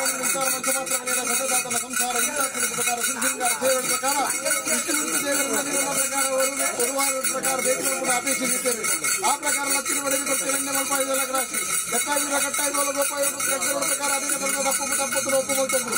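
Theyyam ritual percussion: chenda drums and small hand cymbals keep up a fast, unbroken beat, with voices and pitched tones running underneath.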